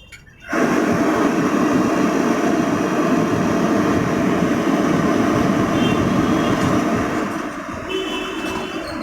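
A motor starts abruptly about half a second in and runs at a steady speed with a loud whirring hum, then eases off near the end.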